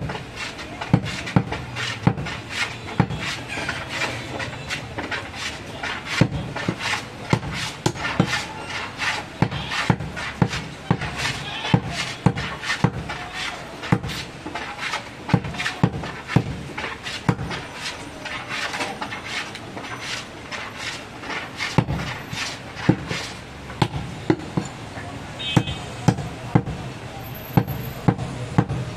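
Heavy curved cleaver chopping through mutton into a round wooden chopping block, one sharp strike after another, about one to two a second.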